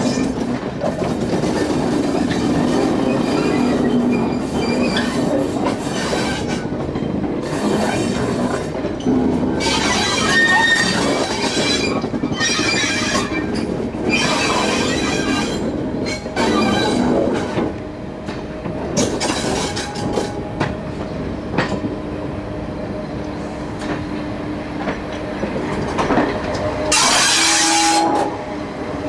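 Train wheels rolling slowly over jointed track and points, heard at an open window of a 4-CEP slam-door unit: a steady rumble and clatter, with several short bursts of screeching and brief squealing tones as the wheels take curves and pointwork.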